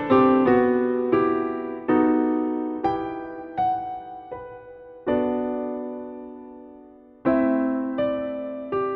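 Background piano music: slow, gentle notes and chords, each struck and left to die away, with a longer held chord in the middle.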